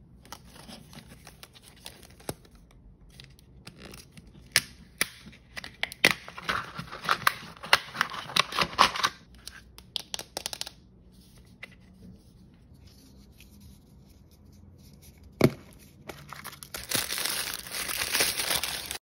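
Plastic and paper wrapping of an L.O.L. Surprise Color Change ball being torn open and crinkled by hand, with many small sharp clicks. One loud plastic click comes about two-thirds of the way through, then paper wrapping is crumpled near the end.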